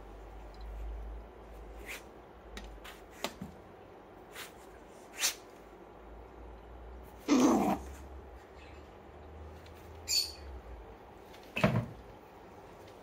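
Bull terrier puppy nosing at a glass hamster tank: a few scattered short sniffs and knocks. The loudest is a brief one about seven seconds in, with another sharp one near the end.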